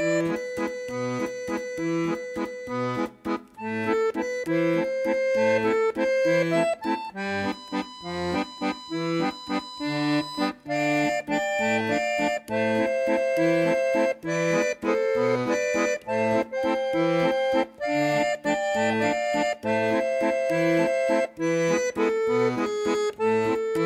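Background music: an accordion playing a tune over a steady oom-pah accompaniment of alternating bass notes and chords.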